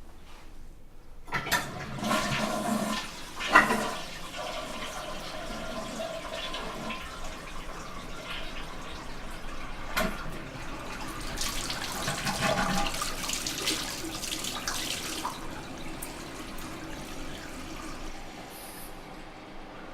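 A toilet flushing: water rushes loudly into the bowl and drains for well over ten seconds, then dies away.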